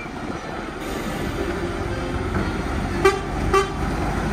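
Articulated lorry pulling away, its diesel engine running, with two short blasts of its horn about three seconds in.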